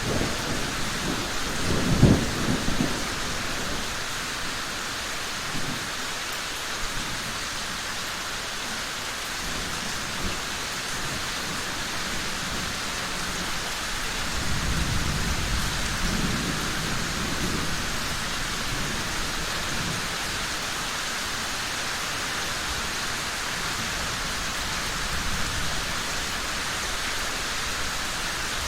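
Steady heavy rain with thunder: a sharp, loud rumble about two seconds in and a longer rolling rumble about halfway through.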